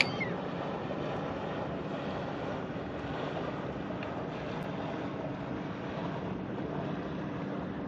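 Steady wind noise on the microphone and water lapping around a kayak on open water, with one brief sharp sound right at the start.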